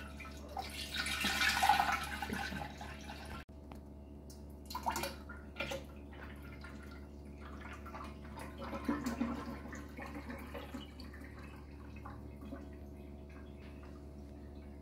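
Thick fruit juice poured in a steady stream into a glass drink dispenser, splashing loudest in the first few seconds as it hits the empty glass bottom, then pouring more quietly into the rising juice.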